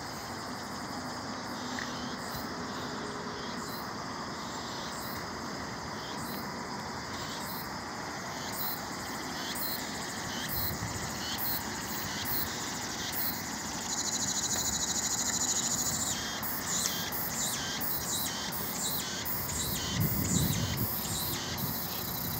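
Insects chirping in short, repeated high pulses over the steady hum of a distant city, with a higher steady insect buzz for about two seconds past the middle and a few low rumbles near the end.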